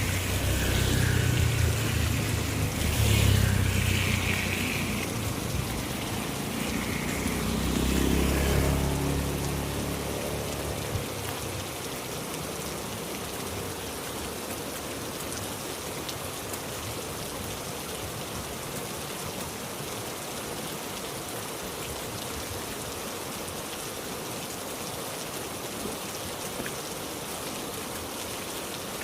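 Heavy rain falling steadily, an even hiss. For the first ten seconds a low rumble swells twice and then fades away.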